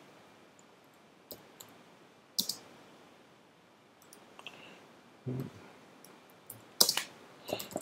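A handful of sharp, separate clicks from a computer mouse and keyboard, with quiet gaps between them and a tighter cluster of clicks near the end.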